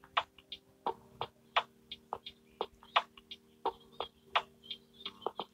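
Background music of light ticking and tapping percussion, a few irregular taps a second, over a faint steady low drone.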